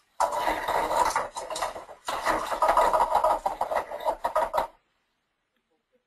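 Clattering and scraping of the show's toy shapes being moved on the stage's ramp, in two runs of about two seconds each, stopping suddenly a little before the end.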